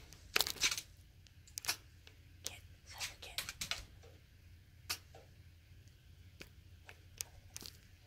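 Scattered short crackles and rustles, like paper being shifted, most frequent in the first second and again around three to four seconds in, over a low steady hum.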